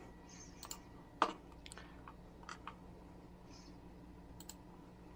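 Scattered sharp clicks of a computer mouse and keyboard being used, some in quick pairs, over a faint steady hum.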